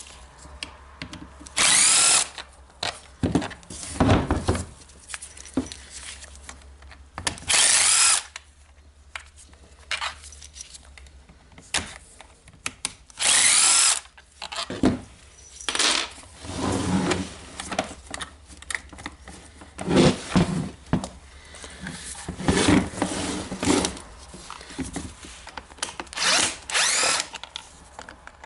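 Power screwdriver running in several short bursts, each with a quick rise and fall in pitch, as it backs out the screws of a diamond core drill's housing. Knocks and rattles of parts being handled come between the bursts.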